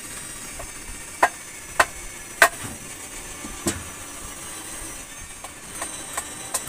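Hammer blows on wood: a few sharp, irregularly spaced strikes, the loudest about two and a half seconds in, over a steady background hiss.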